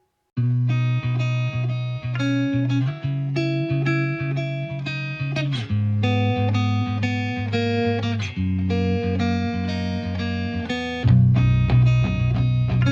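Background music: a guitar-led instrumental passage starting abruptly about half a second in, with a heavier bass layer joining near the end.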